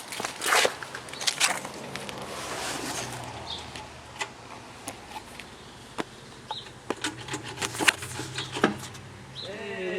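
Irregular clicks and knocks of metal parts being worked by hand while freeing a stuck shift lever, over a faint low steady hum.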